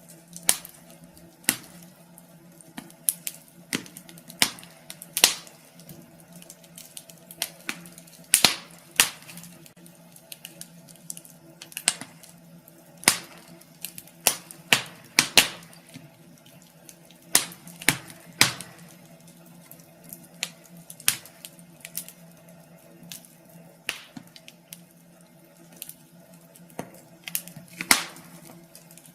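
Wood fire crackling in a fireplace: irregular sharp pops and snaps, a few every second, some much louder than others.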